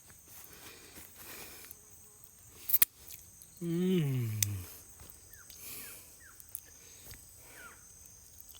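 A man lets out a long tired groan that falls in pitch, about a second long, as he settles into a hammock, after a sharp click. A steady high insect trill runs underneath, with a few short bird chirps later.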